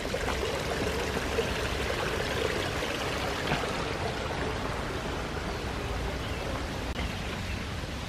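Steady rushing and trickling of a small spring-fed stream running through a stone-lined channel and over a little rock waterfall.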